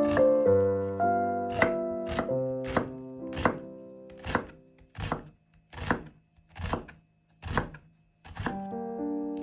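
Knife chopping food on a cutting board in slow, even strokes, about a dozen in all. Background piano music plays under it, fades out around the middle and returns near the end.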